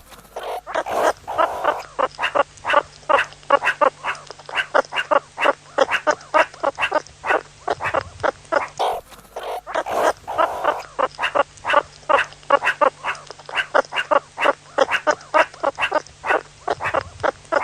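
An animal calling in a fast run of short, sharp calls, about three a second, with a brief break about halfway through.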